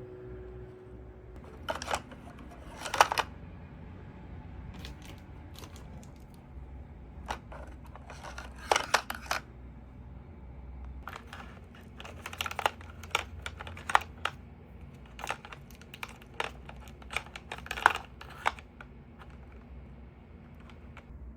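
Scattered light clicks, taps and rustles of objects being handled, some in quick clusters, over a steady low hum.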